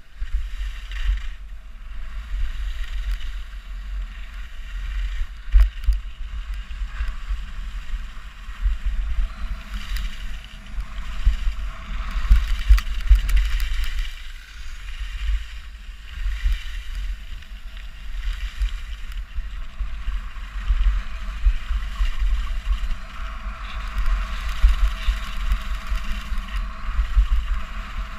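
Wind buffeting the camera's microphone during a fast downhill ski run, a loud gusty rumble. Under it is the hiss of skis scraping and carving over packed snow, swelling and fading with each turn.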